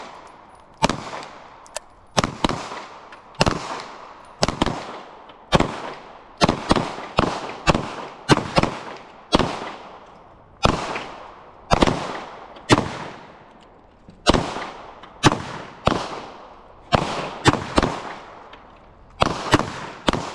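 Handgun shots on a shooting range, about thirty sharp reports at irregular intervals over twenty seconds, some in quick pairs, each followed by a short ringing echo. Several shooters are firing at once.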